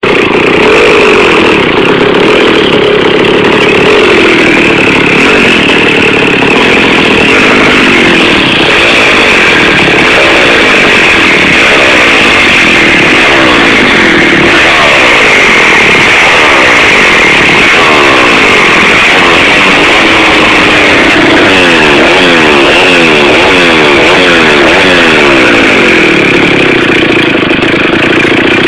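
Old two-stroke chainsaw engine running loud, idling steadily at first, then revved up and down again and again, the pitch rising and falling about once a second in the latter part, before settling back to a steady idle near the end. It runs without any repair work.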